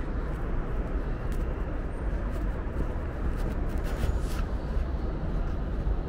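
City street ambience: a steady low rumble of traffic, with a few faint clicks around the middle.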